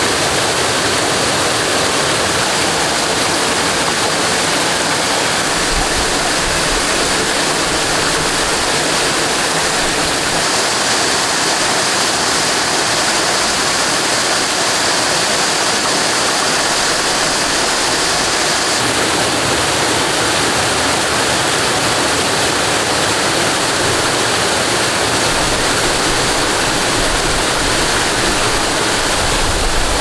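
Loud, steady rush of flowing stream water, with no breaks or separate knocks standing out.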